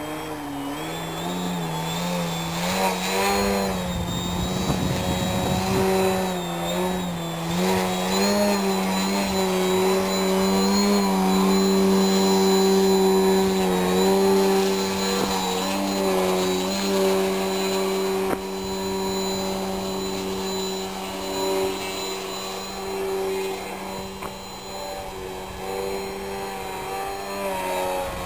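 Electric motor and propeller of a 3DHS 40-inch Edge 540 RC aerobatic plane: a loud steady buzzing tone with a thin high whine above it. Its pitch wavers up and down for the first several seconds, then holds nearly steady while the plane hangs nose-up in a hover.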